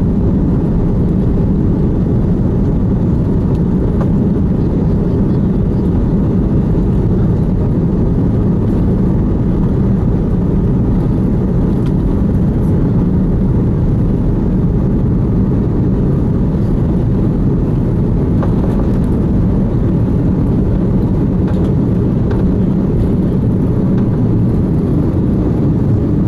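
Steady, loud cabin rumble of an Airbus A340-600's four Rolls-Royce Trent 500 engines at takeoff thrust, mixed with the rumble of the wheels rolling down the runway, heard inside the cabin. It is a long takeoff roll at maximum takeoff weight.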